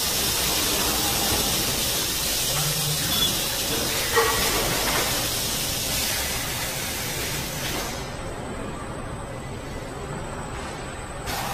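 Steady hissing machine noise of a robotic car-body assembly line, with a couple of short knocks about three and four seconds in; the hiss thins out about eight seconds in.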